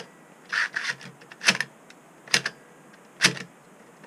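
A 3.5-inch floppy drive's metal frame and mechanism clacking as it is handled and worked during disassembly: four sharp clacks, roughly one a second.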